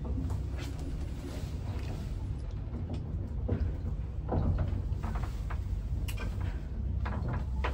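A small passenger lift running, a steady low hum, with a few light clicks and knocks scattered through it.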